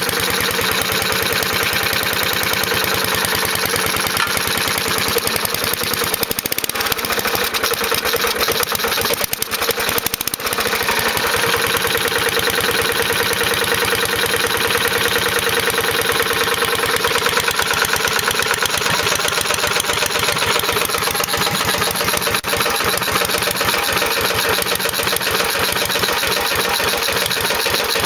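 Straight-piped 4 hp Briggs & Stratton single-cylinder engine with a Choke-A-Matic carburetor, idling low and steady with the throttle fully closed, a fast, even beat of exhaust pulses.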